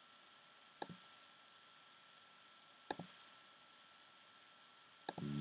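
Near silence: faint room hiss with a thin steady high whine, broken by a few sharp computer-mouse clicks, a quick pair about a second in and single clicks near three seconds and near the end.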